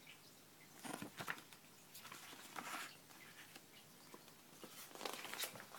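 Faint paper rustling and handling noise as an instruction leaflet is leafed through, in three short bouts about a second in, around the middle and near the end.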